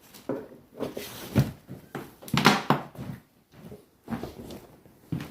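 Irregular knocks, bumps and scuffing from things being handled and moved about, loudest in a cluster about two and a half seconds in.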